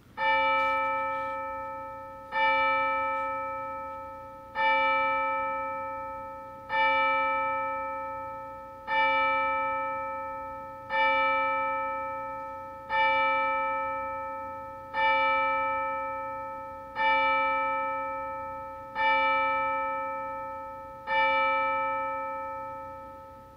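A single church bell tolling eleven times at the same pitch, one stroke about every two seconds, each ringing and fading before the next.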